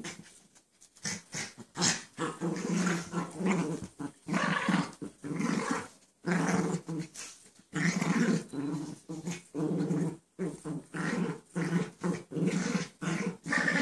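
Pets growling in rough play: a long run of growls, each lasting about half a second to a second, with short breaks between them.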